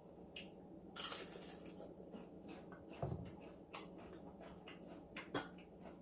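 Quiet eating and handling sounds: a few small clicks and a short crackle about a second in, as seafood is picked at and chewed.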